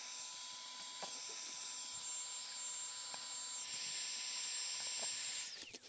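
An electric power tool's motor runs steadily with a high whine, then switches off and winds down near the end.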